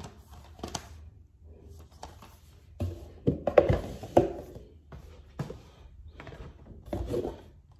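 Plastic DVD cases being handled: a series of irregular clacks and knocks, loudest around the middle.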